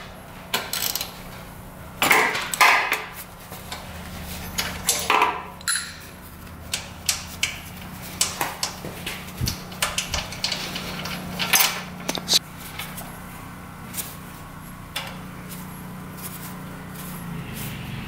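Irregular metal clicks and clinks of hand tools working at the spark plug of a 5 hp Briggs & Stratton engine, the plug being taken out for a compression test. A steady low hum sits underneath.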